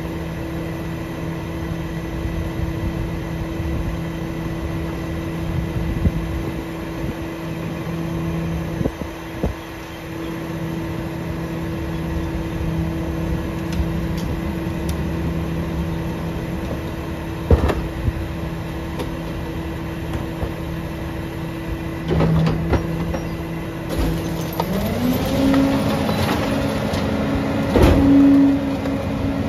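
Curbtender mini rear-loader garbage truck idling while its pendulum packer cycles: a steady engine and hydraulic hum with occasional metal clanks. About 25 seconds in the engine speeds up, its pitch rising and then holding higher, and there is a loud knock near the end.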